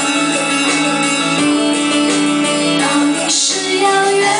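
A woman singing a slow song with long held notes into a handheld microphone over backing music.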